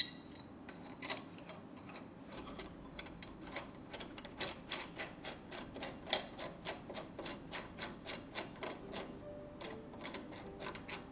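A run of light metallic clicks, about four a second, as metal parts are fitted and turned by hand on a Grundfos SQF submersible pump; a single sharper click comes right at the start.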